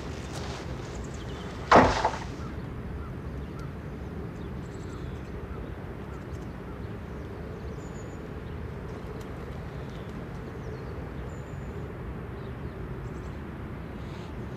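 A heavy wooden front door bangs shut once, about two seconds in. After it comes a steady hiss of wet outdoor ambience with a few faint ticks.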